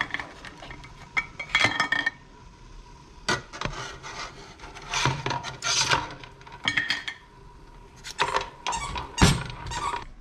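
A whisk beating a flour-and-beer batter in a bowl, clinking and scraping against the bowl in irregular strokes.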